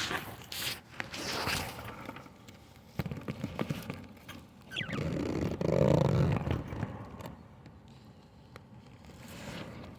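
Irregular rustling and scraping with scattered clicks, a short high chirp just before the middle, and a low dull thump about six seconds in.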